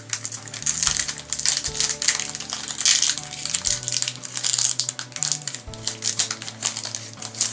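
Foil trading-card booster pack wrapper crinkling and crackling as it is handled and torn open, in quick irregular rustles, over quieter background music.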